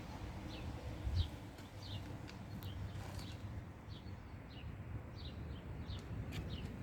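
A small bird chirping over and over, short high chirps that dip slightly in pitch, about one or two a second, over a low rumble.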